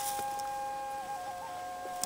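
A flute holding a long note that wavers and steps down to a slightly lower note about a second in. Other held notes at different pitches sound over it at the same time, the earlier notes echoing back off the canyon walls.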